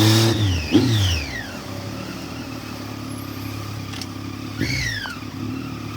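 Triumph Tiger 800's three-cylinder engine coming off the throttle, its pitch falling, with a short rev blip about a second in. It then settles to a low steady run near idle, with another brief blip near the end.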